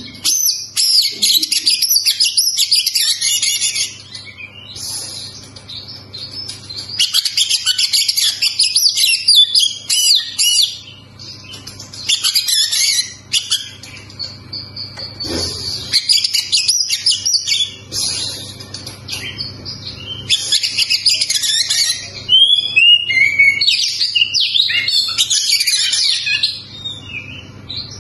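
Oriental magpie-robin (kacer) in full, persistent song: fast, varied whistles and chattering notes delivered in about six bursts of one to four seconds each, with short pauses between them.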